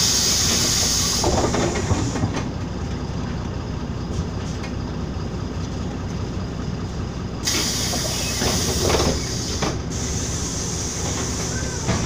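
Inside a LiAZ-5292.22 low-floor city bus under way: the diesel engine and running gear give a steady low drone. Two loud stretches of air hissing come over it, one at the start lasting about a second and another from about seven and a half seconds in lasting about two seconds.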